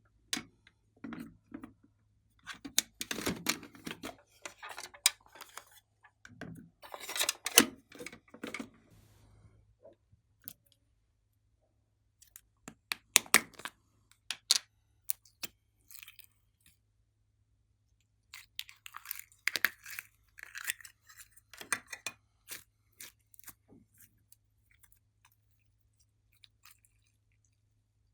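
Slime being pressed and squished by hand, making sticky crackles and sharp clicking pops in four bursts with quiet pauses between.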